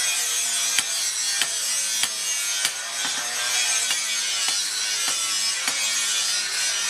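Hand hammer striking a steel sword blade laid over a stake anvil, a series of sharp metallic blows about every half second to a second, over a steady scratchy hiss.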